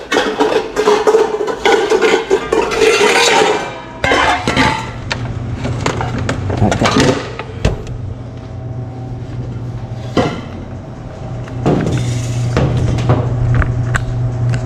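Stainless steel mixing bowls clanking, scraping and ringing against each other as they are pulled out of a nested stack on a wire rack. After the first few seconds the clatter gives way to scattered single knocks of metal on metal, over a low steady hum.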